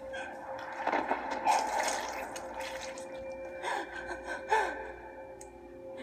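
A woman's gasps and short falling cries from a horror film soundtrack, heard through a TV speaker over a steady hum. The two sharpest cries come a little past halfway through, the second the loudest.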